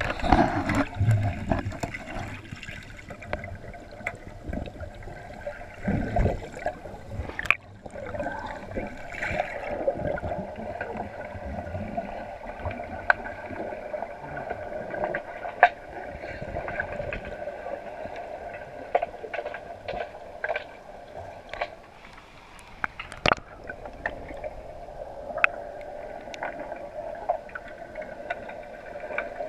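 Underwater sound of an underwater hockey game, heard through the camera's waterproof housing: a steady hum with sharp clicks and knocks scattered throughout, from sticks and puck striking the tiled pool floor. Heavier low rushing and bubbling near the start and again about six seconds in.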